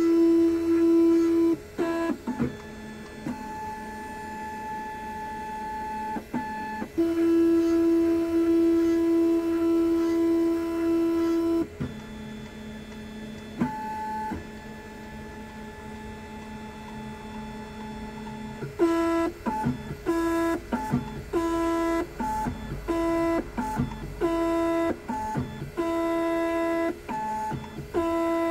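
Computerised key-cutting machine decoding a Toyota key. Its motors give a steady electric whine that starts, stops and shifts between a few pitches as the clamped key is moved and probed. The whine comes in long runs at first, then in quick short on-off pulses over the last third.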